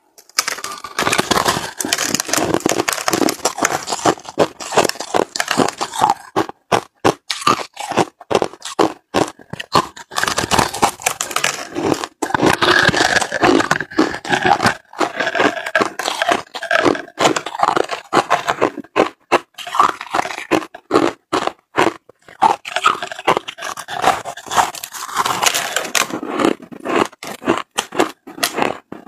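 Close-up crunching of packed crushed ice being bitten and chewed: a dense, rapid crackle of ice grains breaking that goes on almost without pause.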